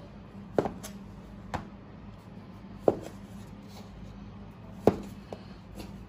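Chinese cleaver cutting through pieces of dough and knocking on a wooden cutting board: about five sharp knocks at uneven intervals, over a steady low hum.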